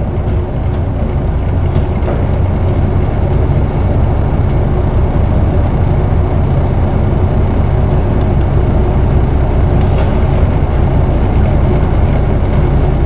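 Isuzu Erga (PKG-KV234L2) city bus's diesel engine and drivetrain heard from inside the cabin while the bus is under way, the engine sound building slowly over the first few seconds, then holding steady.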